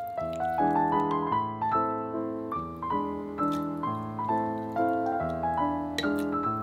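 Background piano music: a gentle melody over chords, the notes struck and fading one after another.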